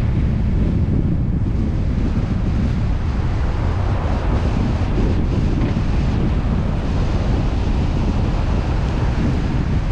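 Steady, deep rush of road and wind noise from a car being driven, with no distinct events.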